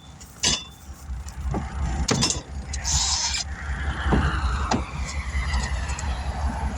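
Truck engine running with a steady low rumble, broken by scattered knocks and clanks of equipment being handled and a brief hiss of air about three seconds in.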